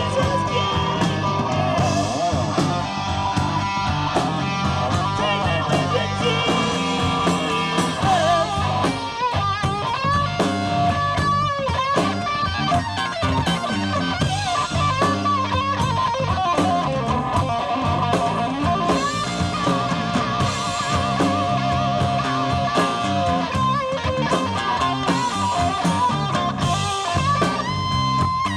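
Live blues-rock band: an electric guitar solo with string bends, vibrato and long held notes over drums and bass.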